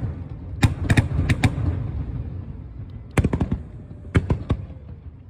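Aerial fireworks shells bursting in three quick clusters of sharp bangs, with a low rumble echoing between them.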